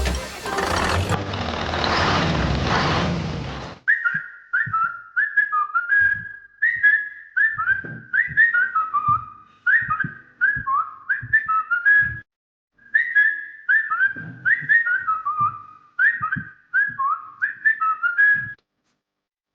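A whistled tune of short, gliding notes with soft low beats underneath, starting about four seconds in and stopping shortly before the end. Before it, a steady hiss of noise cuts off abruptly.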